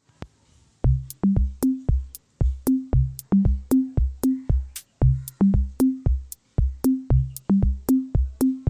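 Electronic background music: a drum-machine beat of deep, punchy bass-drum hits with short pitched notes and crisp clicks, in a steady rhythm that starts about a second in.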